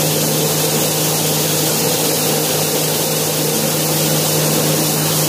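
Yanmar RHS40DL brown-rice huller running steadily: an even motor hum over a constant rushing noise.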